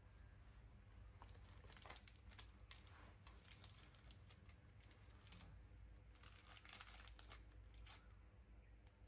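Faint crinkling and crackling of a plastic snack wrapper being handled, in two spells, about two seconds in and again around seven seconds in.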